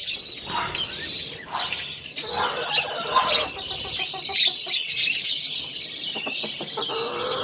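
Small birds chirping constantly: many short, high-pitched chirps that fall in pitch, overlapping one another.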